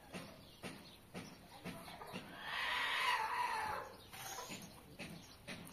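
A farm animal calls once, a single long call of about a second and a half starting about two seconds in, over scattered light clicks and knocks.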